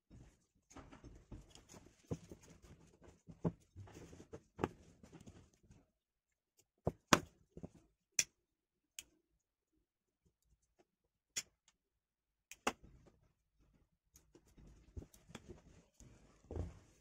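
Hands handling and pulling macrame cord, a soft irregular rustling. In the middle there are about half a dozen separate sharp clicks, and near the end a louder thump.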